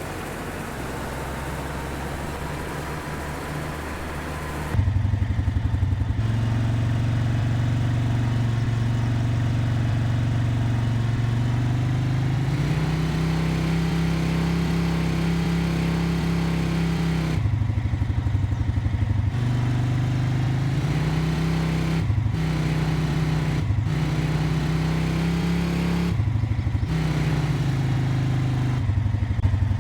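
Engine running steadily, getting louder about five seconds in and shifting in pitch a few times after that, with brief dips.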